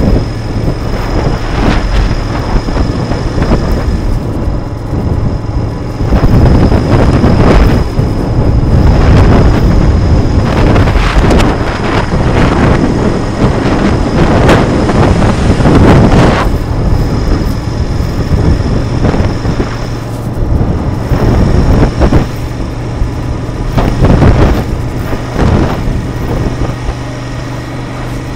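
Royal Enfield Continental GT 650's parallel-twin engine running steadily at highway cruising speed, with wind buffeting the microphone in gusts that swell and fade.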